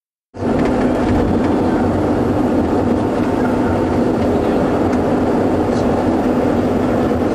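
Steady interior rumble of a moving coach bus, the engine and road noise droning low inside the passenger cabin. It cuts in suddenly just after the start.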